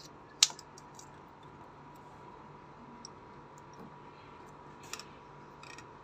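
Small sharp clicks of plastic wire connectors and metal terminals being pried and handled on a washing machine's spin capacitor. One loud click comes about half a second in, and a few lighter clicks follow near the end.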